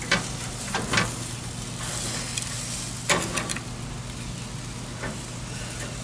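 Pork ribs sizzling over a charcoal grill fire, a steady hiss, with a few sharp clinks of a metal spatula against the ribs and grate, around one and three seconds in.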